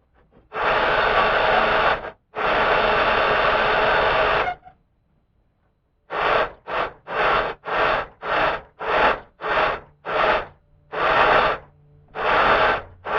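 Lawn tractor engine turned over by its starter without catching, which the owner takes for a sign that it is getting no spark, the plug perhaps fouled with PB Blaster. It comes as two longer cranks of a couple of seconds each, then, after a pause, a series of short cranking bursts about two a second, harsh and noisy.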